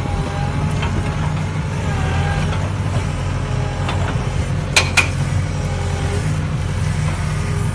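Excavator diesel engine running steadily under load, with faint rising and falling hydraulic whine as the arm moves. About five seconds in, two sharp knocks close together as the steel breaker attachment strikes the rock.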